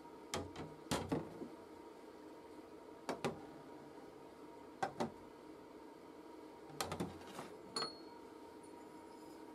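Thick laser-cut steel plates set down one by one on a metal sheet, each landing with a short metallic clack or a quick pair of clacks, about six times over the stretch.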